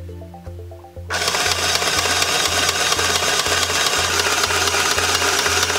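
Singer TS-380 Plus Tiny Serger, a small three-thread serger, starts suddenly about a second in and runs steadily, stitching fabric. Background music with a steady beat plays under it.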